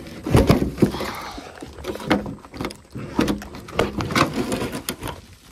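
Irregular knocks, clunks and scraping as wooden boards and junk are shifted and rummaged through by hand, a dozen or so hits.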